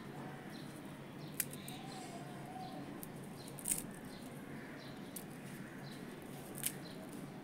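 Crisp fried amriti (urad-dal sweet soaked in sugar syrup) being broken apart by hand: faint crackling with three sharper cracks, the loudest near the middle, a sign that it has fried crunchy.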